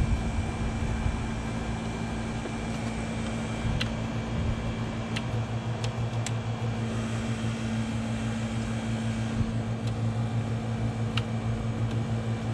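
A steady machine hum, like a fan or air conditioner, with a few sharp light clicks scattered through it.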